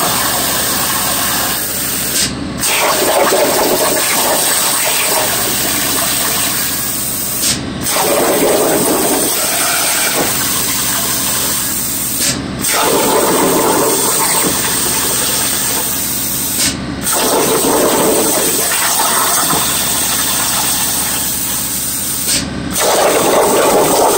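Langmuir Crossfire CNC plasma torch cutting 18-gauge sheet metal at 70 inches per minute: a steady loud hiss of the arc and air, broken by brief dips about every five seconds.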